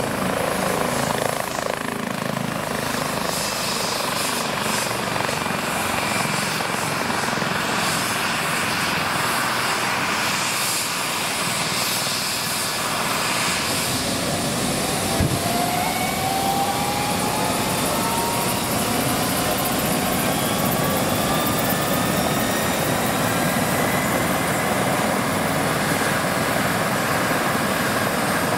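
Eurocopter EC135 helicopter running on the ground with a dense, steady turbine-and-rotor noise. From about halfway through, a whine climbs steadily in pitch as an engine spools up for departure.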